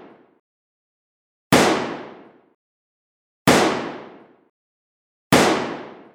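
Three identical sudden explosive bangs about two seconds apart, each dying away over about a second into dead silence: one boom repeated by editing.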